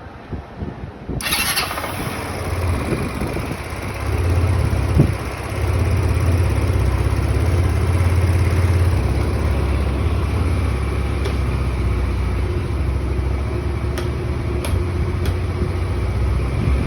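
Motorcycle engine starting about a second in, then running steadily at idle, a little louder from about four seconds in.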